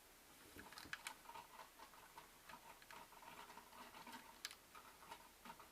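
Faint, irregular clicking and tapping of small plastic K'NEX parts being handled.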